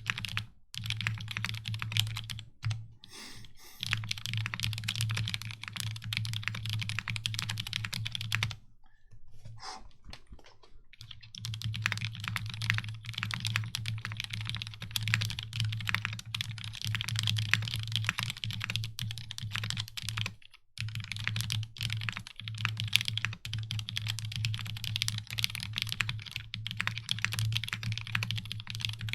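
Fast typing on a Keycult No.1/65 custom mechanical keyboard with a brass plate, switches with UHMWPE stems in Cherry housings, and GMK keycaps: a rapid, dense stream of key clacks. It breaks off a few times, longest for about two seconds around ten seconds in.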